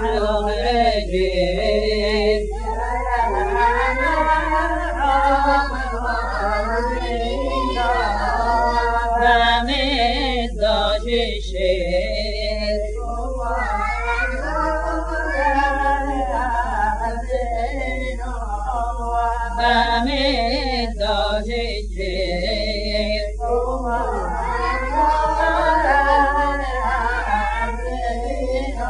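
Yemenite Jewish shira sung unaccompanied by a male voice: a chant-like melody that wavers and bends in long phrases with short breaths between them. A steady low hum runs beneath.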